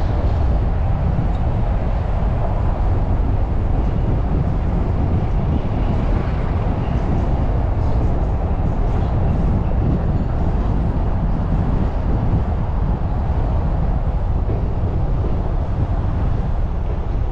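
Steady low rumble of road and traffic noise from a car driving along a city street, with an even hiss above it and no distinct events.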